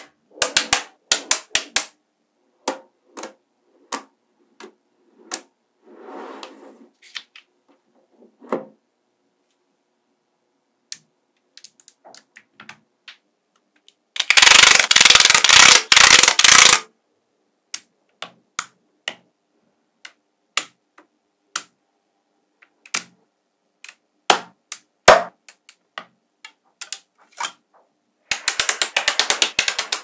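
Small magnetic balls clicking and snapping together, single sharp clicks spread out with pauses. Twice, about halfway through and again near the end, comes a dense run of very rapid rattling clicks lasting a few seconds.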